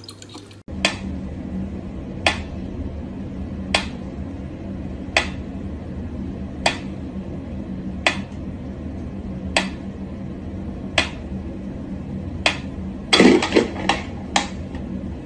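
Mechanical pendulum metronome ticking slowly and evenly, one sharp tick about every second and a half, over a steady low room hum. Near the end, a brief louder clattering noise sounds among the ticks.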